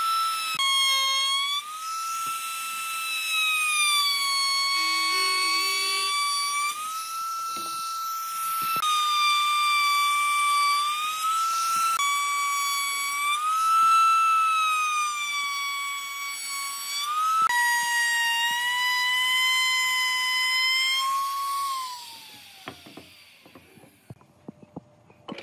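Electric power tool motor running with a high, steady whine that dips and shifts slightly in pitch, then winds down with falling pitch after it is switched off near the end.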